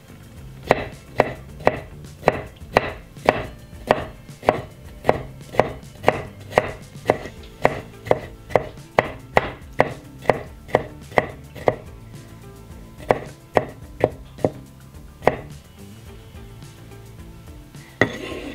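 Chef's knife dicing pickles on a wooden cutting board: sharp, steady knife strikes about two a second, then a few slower, uneven cuts before the chopping stops. A short burst of noise comes near the end.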